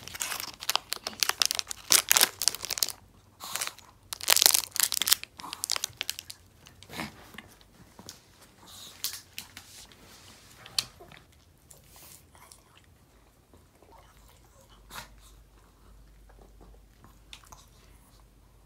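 A Maltese dog crunching and chewing a dog chew: rapid crisp crunches through the first six seconds, loudest about four to five seconds in, then sparser bites that die away by about halfway.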